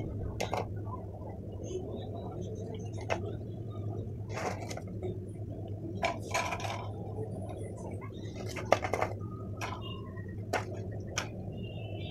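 Crisp fried chana dal vadas being set down on a ceramic plate and broken apart by hand: scattered light clicks and short crunchy crackles over a steady low hum.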